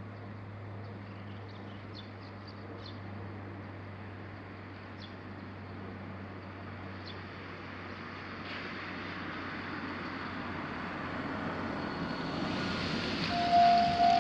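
A road vehicle's noise swells over several seconds. Then, about a second before the end, the railroad crossing's electronic warning bell starts, ringing in loud repeated dings about twice a second.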